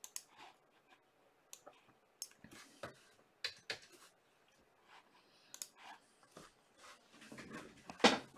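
Scattered clicks of a computer mouse and keyboard as a text list is edited, with a louder knock near the end.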